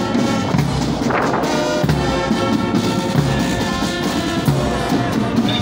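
Brass band with drums playing march music, with held brass notes over a steady beat.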